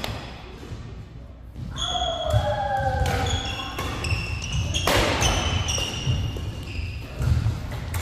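Badminton rally in a reverberant hall: sharp racket strikes on the shuttlecock, the first about one and a half seconds in, with short high squeaks of shoes on the court mat and the thud of players' footwork.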